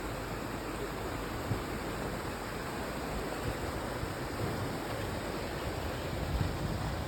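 River water rushing over rapids, a steady even rush, with some low rumbling toward the end.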